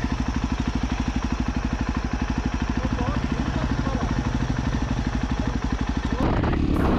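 Motorcycle engine idling with a steady, rapid putter. About six seconds in it gives way to the louder sound of riding, with background music starting.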